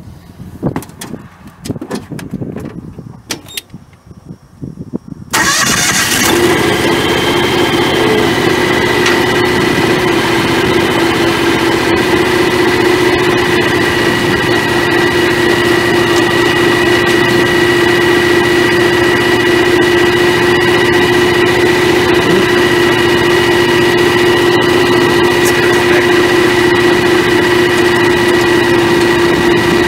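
John Deere X738 lawn tractor engine starting up about five seconds in, then running steadily with a constant high whine over the engine note. Before it, a few light knocks.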